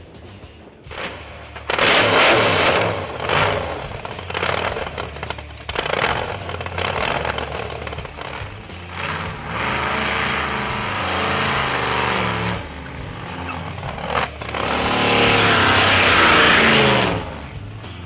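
JCB GT racing backhoe's engine starting about a second in and revving hard in short blips, then pulling away under acceleration with its pitch rising twice, loudest near the end.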